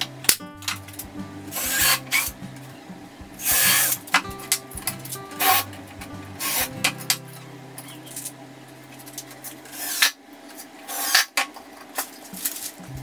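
Pine boards being fitted and fastened together into a shelf box on a wooden workbench: several sharp knocks and short scraping rasps, spaced a second or more apart, over steady background music.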